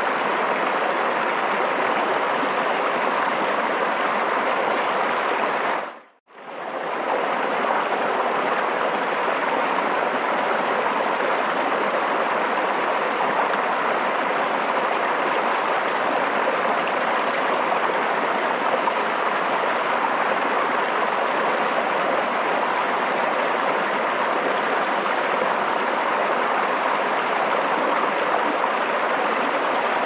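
Knik River flowing: a steady rush of moving water. About six seconds in, the sound briefly fades out almost to silence and comes straight back in.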